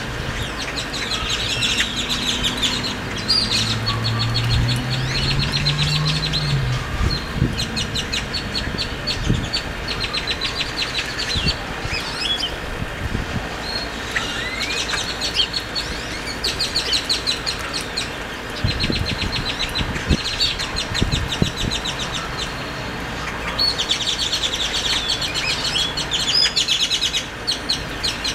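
A flock of great-tailed grackles calling: repeated bursts of fast, rattling chatter, coming in clusters again and again.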